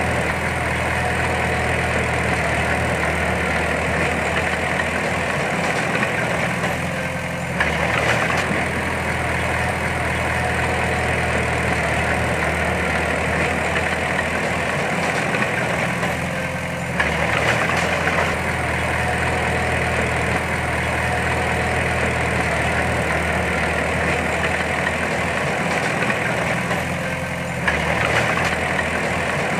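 Heavy diesel engine of earthmoving machinery running steadily. About every ten seconds the engine note dips briefly, then surges louder for a second.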